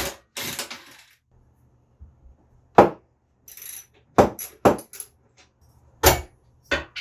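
Metal tools and motorcycle parts knocking and clanking together in about six sharp, irregular strikes, some with a short metallic ring, as a shock absorber is taken off the frame.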